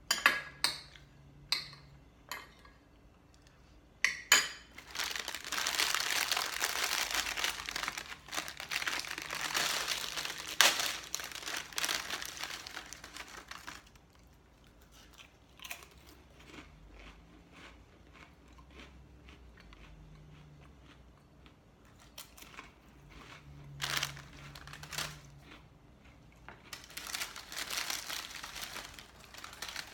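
A spoon clinks a few times against a ceramic soup bowl, then plastic packaging crinkles and rustles for about ten seconds while it is handled. After quieter scattered clicks, the crinkling comes back near the end.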